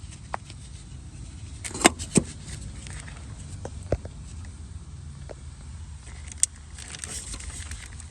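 A few sharp clicks and knocks of tools and parts being handled during brake bleeding: a close pair about two seconds in, single ones near four and six seconds, over a steady low hum.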